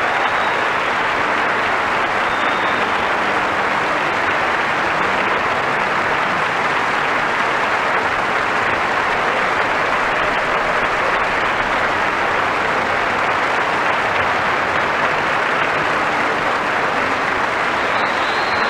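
Concert audience applauding steadily after the first movement of a trumpet concerto, heard off a radio broadcast recorded on cassette.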